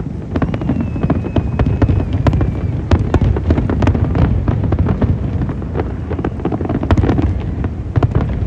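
Aerial fireworks exploding in quick succession: a continuous low rumble of booms with many sharp cracks over it. A faint thin whistle rises out of it for about two seconds near the start.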